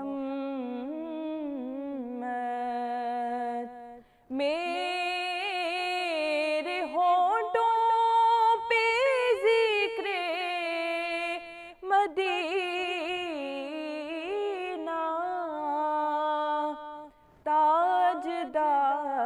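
A woman singing an Urdu naat in long, ornamented held notes that slide in pitch. She breaks off briefly about four seconds in and again near the end.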